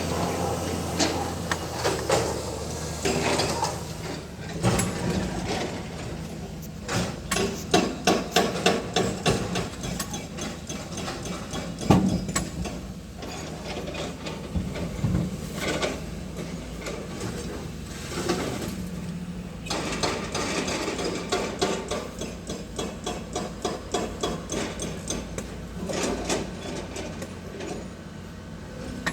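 Repeated hammer knocks on stone at an excavation site, coming in quick runs of strikes, over a steady low engine hum.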